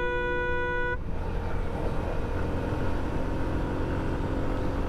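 A vehicle horn sounds with one steady tone that cuts off about a second in. Under it and after it runs the steady wind rush and engine noise of a Suzuki Gixxer SF motorcycle riding along at speed.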